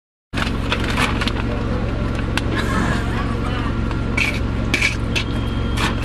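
Sound cuts in a fraction of a second in, then paper fast-food bags rustle and crinkle as hands dig through them, over a steady low hum inside the car. Some laughter comes in now and then.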